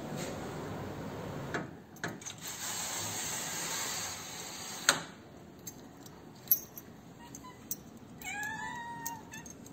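A street cat meows once, drawn out, near the end, after a few sharp clicks and some rustling hiss in the first half.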